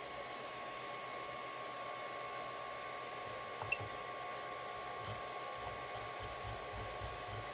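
3D printer running with a steady fan hum and a constant whine. A short high-pitched blip sounds a little past halfway, and soft low knocks and faint clicks follow in the last few seconds.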